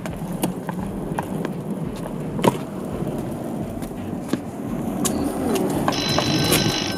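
A wheeled suitcase dragged over a concrete sidewalk: the wheels rumble, with sharp clicks as they cross the pavement joints. Near the end a brief steady high-pitched tone sounds over it.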